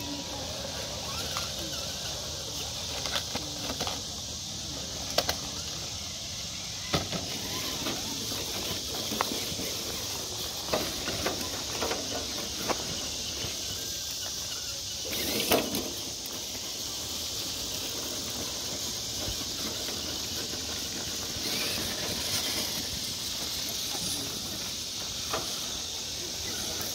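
Steady high-pitched chorus of night insects, with a few scattered sharp clicks and knocks, the loudest about halfway through.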